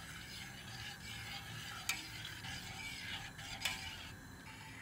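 A metal spoon stirring milk and semolina in a stainless-steel pot over medium heat as the semolina cream begins to thicken, a faint steady swishing. Two light clinks of the spoon on the pot, about two seconds in and again past three and a half.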